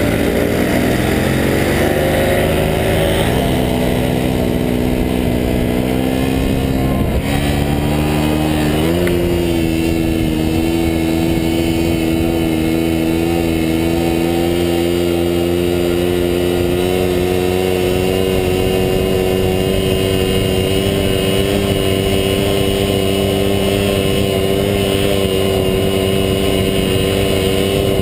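Small two-stroke moped engine held at high revs while the moped is ridden in a wheelie. Its pitch climbs over the first few seconds, jumps up twice, then holds a steady high note that creeps slowly higher. Wind rumbles on the microphone underneath.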